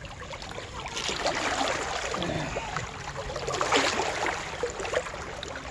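River water splashing and sloshing as two men, chest-deep, work their arms into holes in the bank, with louder splashes about a second in and near four seconds.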